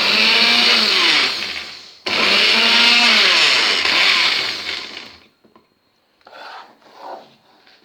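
Electric blender whipping the coffee mixture, run in two bursts: the first winds down after about two seconds, and the second starts at once and runs about three seconds. The motor pitch rises and falls as it works. Faint clatters follow near the end.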